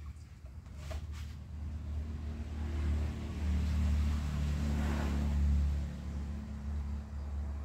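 A motor vehicle's engine rumbling low, growing louder over a few seconds and then easing off, as if passing by.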